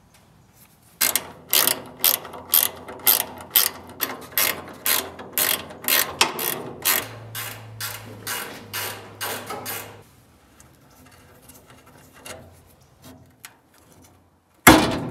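A 13 mm ratcheting combination wrench clicks in repeated strokes, about two a second, working a bolt on the Beetle's body. The ratcheting stops about ten seconds in, a few faint ticks follow, and there is one sharp clunk near the end.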